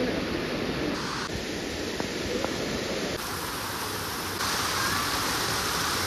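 Monsoon waterfall rushing, a steady, even noise of falling water with no pauses; its tone shifts abruptly a few times as the shots change.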